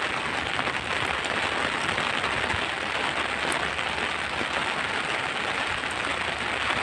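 Steady rain, fairly heavy, pattering on an umbrella held overhead.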